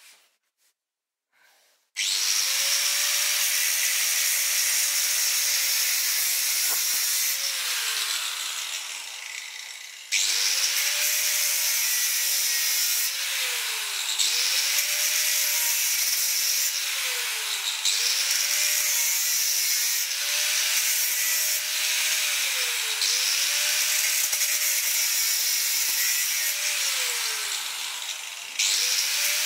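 Ingco angle grinder cutting into the metal housing of a car's LPG gas filter: the motor starts about two seconds in and runs with a loud grinding hiss, its pitch sagging each time the disc bites into the metal and recovering, about every two seconds. It winds down for a couple of seconds about a third of the way in, starts again, and dips and restarts once more near the end.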